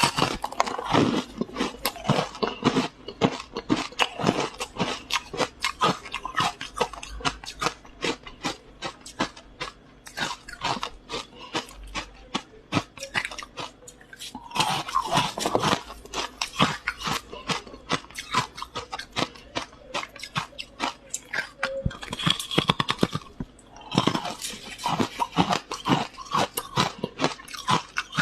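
Close-up crunching and chewing of frost ice: a dense run of rapid crisp crunches, with brief lulls about 14 and 24 seconds in.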